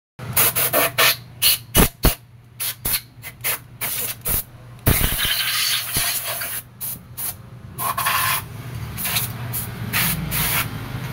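Gloved hands handling motorcycle clutch parts: a quick run of sharp clicks and knocks for the first five seconds, then longer rustling and scraping sounds, over a steady low hum.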